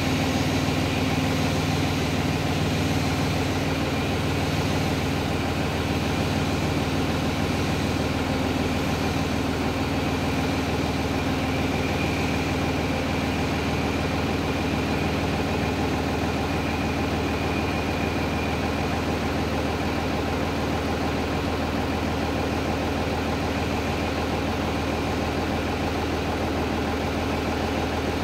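Diesel engine of a grapple-fitted excavator running steadily at a low, even speed, with a faint higher whine coming and going midway.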